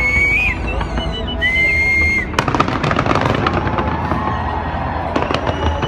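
Fireworks display: high whistling tones glide and hold for the first two seconds, then from about two and a half seconds in a dense, rapid crackle of many small bursts over a low rumble.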